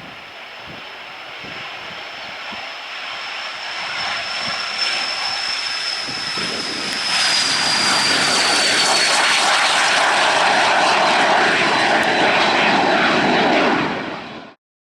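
Cessna CitationJet CJ2 business jet's twin turbofan engines: a high whine over a rushing roar that grows louder as the jet comes closer. The whine drops a little in pitch about halfway in, as the jet passes, and the sound stays loud until it cuts off suddenly near the end.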